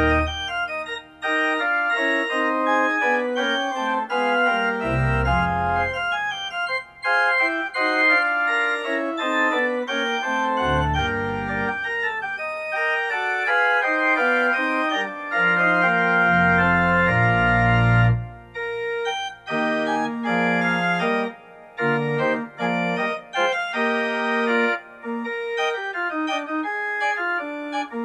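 Organ music: an organ playing a piece of sustained chords, with deep pedal bass notes coming in three times.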